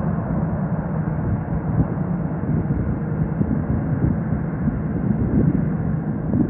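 Jet engines of an Airbus A320 airliner at taxi power, a steady low rumbling roar.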